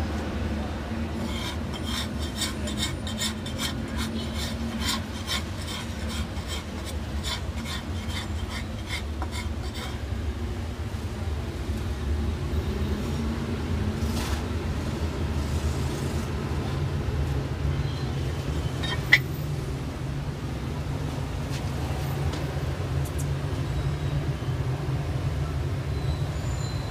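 Steady low rumble of road traffic passing close by. A run of quick, regular ticks starts about a second in and stops about ten seconds in, and a single sharp click comes about two-thirds of the way through.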